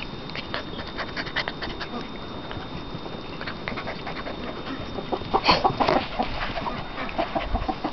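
Six-week-old kuvasz puppy mouthing and nibbling a person's hand on grass, with many small clicks and rustles. A louder, brief cluster of sounds comes about five and a half seconds in.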